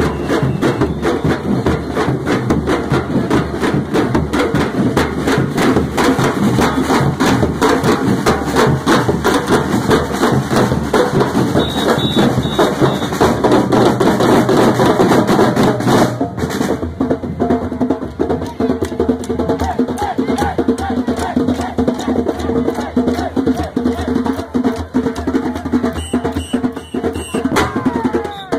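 A street drum band playing a fast, driving rhythm on bass drums struck with mallets, snare drums and hand drums. The beat changes abruptly about halfway through.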